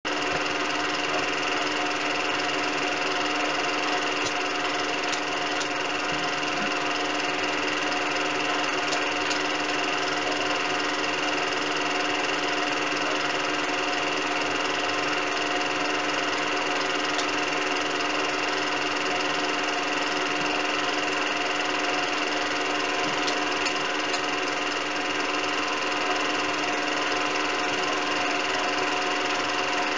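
Film projector running steadily: a constant motor hum made of several fixed tones over an even mechanical whirr.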